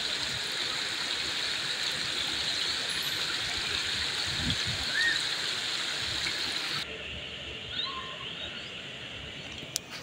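Shallow water rushing among rocks, a steady hiss of flowing water. About seven seconds in, it drops suddenly to a quieter, softer flow.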